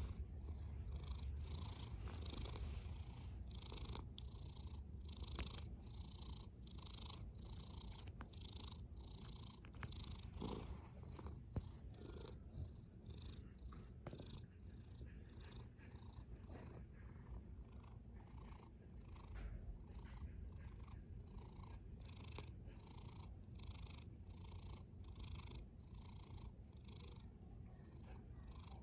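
A sleeping cat's faint, rhythmic breathing rasp, a purring snore that repeats about three times every two seconds.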